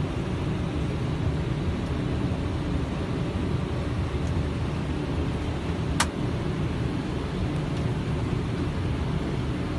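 Steady flight-deck noise of a Boeing 777 on final approach, a deep rush of airflow and engine noise. One short sharp click about six seconds in.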